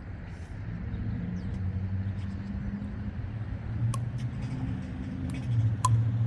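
Pickleball paddles striking a plastic ball during a rally: two sharp pops about two seconds apart, with a few fainter clicks, over a low engine-like rumble that grows louder near the end.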